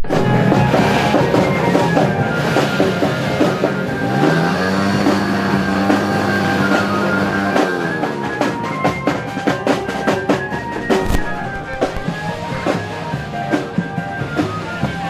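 Marching drum band playing: drum beats under sustained melodic notes, with the drum strokes sharper and more frequent from about eight seconds in.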